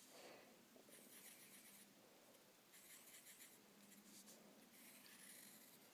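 Faint scratching of a pen tip drawing on paper, in short strokes with brief pauses between them.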